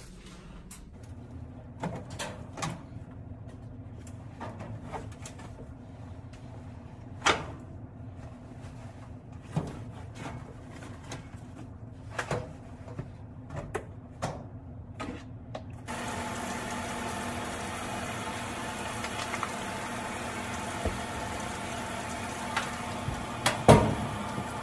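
Scattered knocks and clunks of a top-loading washing machine being loaded with its lid open. About two-thirds of the way in a steady running noise sets in, and near the end the lid comes down with a loud thump.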